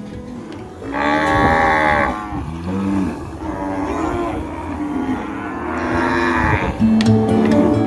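Cow mooing twice: a long moo about a second in, then a second, shorter one past the middle.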